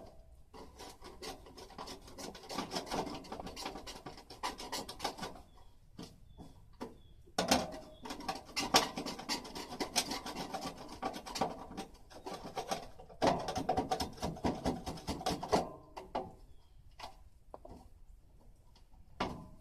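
Rapid scraping and rubbing at stuck plastic on an air conditioner's casing, in spells of quick strokes with short pauses between them; the plastic will not come off.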